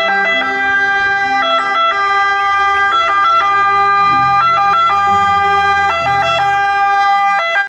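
Ambulance siren sounding: a loud held tone that shifts pitch every second or so.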